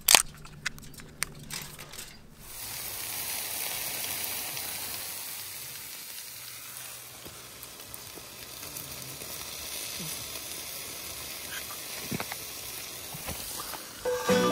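A few sharp clicks, then a steady sizzling hiss with a few faint cracks from campfire embers and charred wood.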